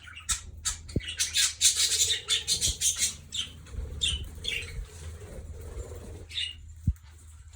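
Scarlet-chested parrots chirping in rapid short high calls, busiest in the first few seconds and thinning out later, with a few dull thumps.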